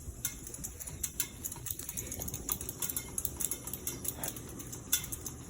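42-inch Hunter Balboa ceiling fan running on high speed, giving a steady low hum, with frequent irregular faint ticks and clicks.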